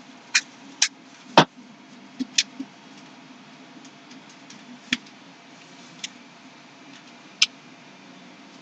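Workshop handling noises: about nine sharp clicks and knocks at irregular intervals, the loudest a knock about a second and a half in, over a steady low hum.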